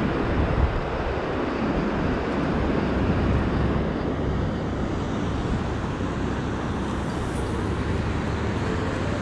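Steady wind and surf noise: a continuous rumble with no breaks.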